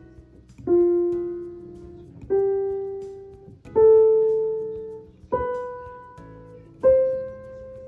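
Piano playing a slow rising melody: five single notes about one and a half seconds apart, each a step higher than the last and fading away, over quieter lower notes.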